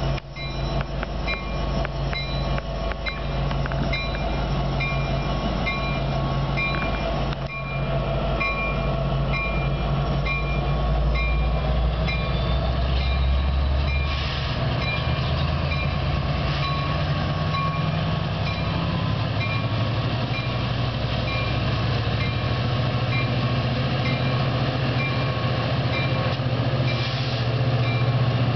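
An Amtrak Cascades train, an EMD F59PHI diesel locomotive with Talgo passenger cars, passing close by as it pulls away. The diesel's steady drone grows heavier about halfway through as the locomotive comes past. Over the first half a high ding repeats about twice a second, then fades.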